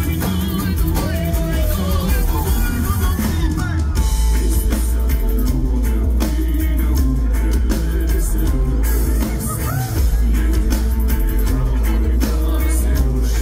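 Live rock band playing loud through the PA: a singer over electric guitar, bass guitar and drum kit, with a heavy, steady low end.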